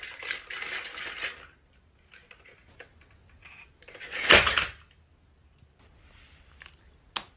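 Battery-powered toy dinosaur on a wooden floor: scattered clicks and clatter, one louder noise of about half a second about four seconds in, and a sharp click near the end.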